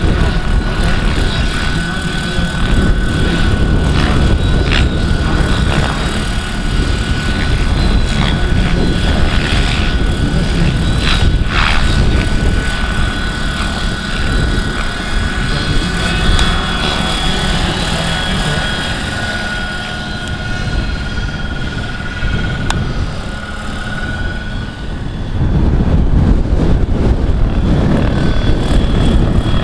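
Large-scale radio-controlled Bell 206 JetRanger model helicopter in flight, its drive and rotor giving a steady high whine. Heavy wind buffeting on the microphone eases for a few seconds and comes back strongly near the end.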